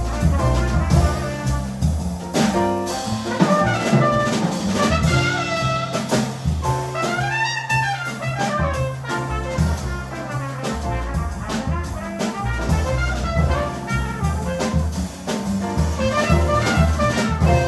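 Jazz quartet of trumpet, piano, double bass and drum kit playing. A trumpet line rises and falls over stepping bass notes, piano chords, and frequent drum and cymbal strikes.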